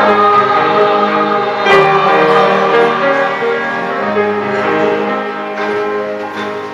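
Slow instrumental music of held notes and chords, fading out near the end.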